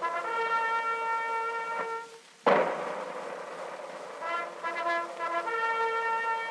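Brass-led background music from an old film soundtrack, playing held chords between short repeated figures. A little over two seconds in the music drops out briefly and comes back with a sharp click.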